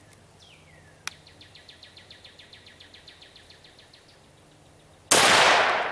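A 12-gauge shotgun fires a buckshot load about five seconds in: one loud shot with plenty of pop, which the shooter puts down to a hot Federal 209A primer and the RW123 wad sealing tighter, ringing out and dying away slowly. Before it, a falling chirp, a sharp click about a second in, and a rapid trill of about nine chirps a second lasting some three seconds.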